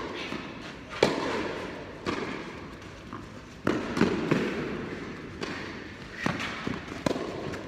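Tennis ball struck by rackets and bouncing on the clay during a rally: a run of sharp knocks about once a second, each trailing an echo from the indoor hall.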